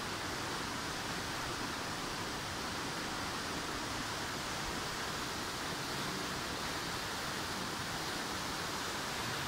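Tall waterfall pouring down a rock cliff: a steady, even rush of falling water.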